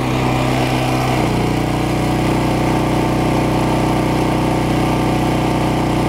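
Westinghouse WGen3600DF open-frame generator's single-cylinder engine running steadily. About a second in, its note shifts and settles as the electric fireplace's load of about 12.7 amps comes on.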